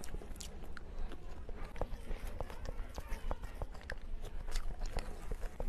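Close-miked eating of spoonfuls of creamy tiramisu mousse cake: mouth smacks and chewing, heard as an irregular run of many small clicks.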